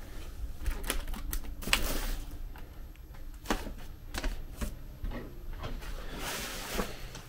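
Plastic DVD and game cases clicking and clacking in irregular taps as they are picked up and shuffled on a wire closet shelf.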